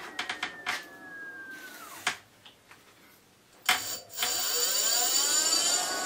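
E-bike rear hub motor spinning the wheel freely with no load: a high whine that slows and dies out about two seconds in, with a few sharp clicks near the start. After a short pause there is a click and the motor spins up again, its whine rising in pitch and settling steady.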